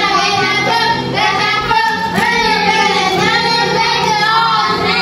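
A song with a high voice singing long, drawn-out notes over a steady musical backing.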